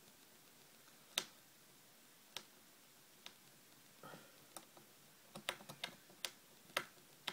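Small sharp clicks and ticks of a small screwdriver working the tiny screws that hold a laptop's LCD panel to its metal brackets: a few scattered clicks, then a quicker run of clicks from about five seconds in.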